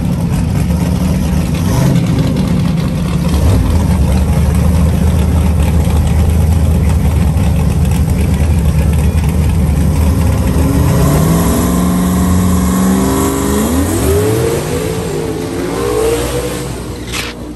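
A drag-racing El Camino's engine running hard during a burnout, held at steady high revs for about ten seconds. In the last few seconds the revs rise and fall several times in quick blips.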